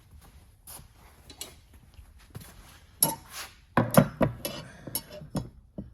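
Metal paintless dent repair tools clinking and knocking together as they are picked up and handled. The clinks come in a cluster about three to four and a half seconds in, with a few more near the end.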